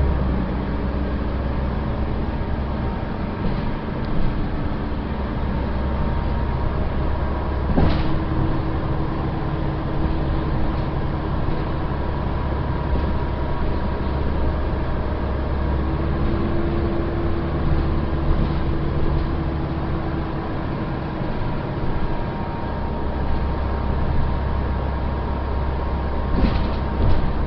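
Inside a moving city bus: a steady low engine drone and road noise, with a faint whine that shifts slowly in pitch. There is a sharp knock about 8 seconds in and another near the end.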